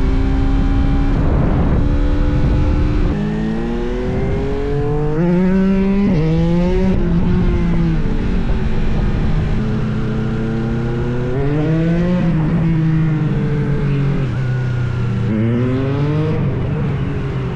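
Motorcycle engine revving hard: a loud, rough stretch for about three seconds, then the engine note climbs and falls again several times.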